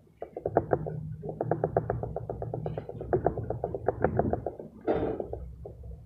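Hand trowel scraping skim-coat compound over rough concrete, a rapid chattering rasp of about ten clicks a second as the blade drags across the uneven surface, with one louder scrape about five seconds in.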